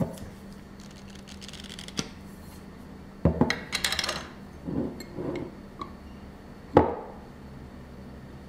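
Metal screw-top lid being twisted off a glass jar, with scraping and rubbing sounds, and a few knocks as the lid and jar are set on the benchtop, the loudest about two-thirds of the way through.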